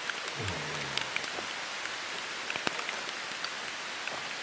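Steady rain falling, with scattered single drops ticking on nearby surfaces.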